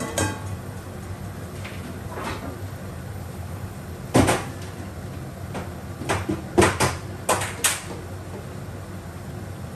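A stainless steel bowl set down on the stove with a short metallic ring, then scattered knocks and clatters, the loudest about four seconds in and a quick run of them around seven seconds, over a steady low hum.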